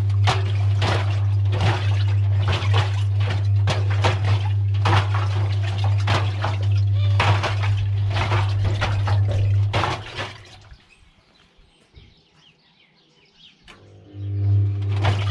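Washing machine running with a steady motor hum while loose cubes knock and clatter against the turning drum. About ten seconds in the drum stops and it goes quiet, then it starts turning again near the end.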